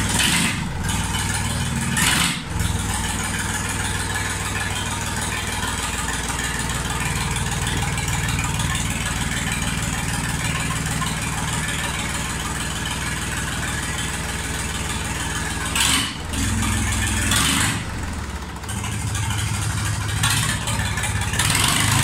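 1982 IHC 633 tractor's four-cylinder diesel engine running steadily on its first test run after a repair, its note swelling louder a few times in the last third.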